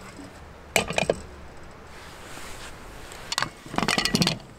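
Objects clattering: two bursts of quick knocks and clicks, about a second in and again near the end.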